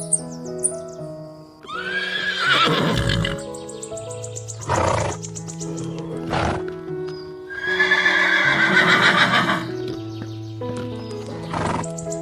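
Horse whinnying: two long neighs about six seconds apart, with a few shorter calls between them, over steady background music.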